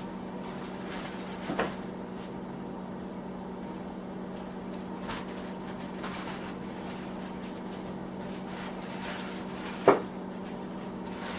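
Steady electric hum from a small shop heater running, with two knocks of metal parts being handled, the louder one near the end.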